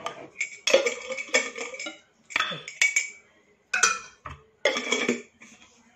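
A spoon and dish clinking and scraping on a plate of food, in about six separate short bursts, each with a brief ring.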